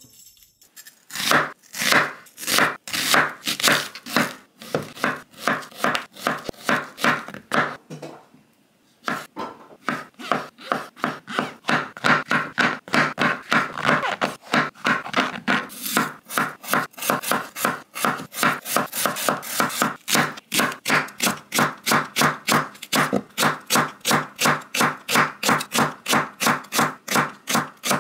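Kitchen knife chopping food on a cutting board in a steady rhythm, about two strokes a second at first and nearer three a second later, with a short pause about eight seconds in.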